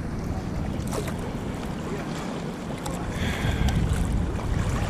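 Steady rushing of river water around a wading angler, with wind buffeting the microphone.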